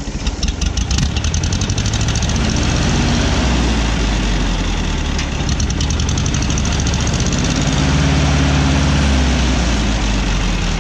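1964 Ford 2000 tractor's gasoline engine running on a newly fitted carburetor with the throttle opened a little. It grows louder over the first couple of seconds, then runs steadily and evenly.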